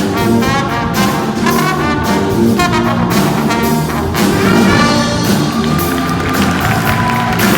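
Funk music: a brass horn section plays the melody over a drum kit groove, with regular sharp drum and cymbal hits.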